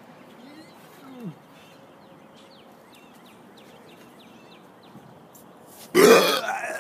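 A man's loud, deep burp about six seconds in, after a stretch of quiet background with a few faint high chirps.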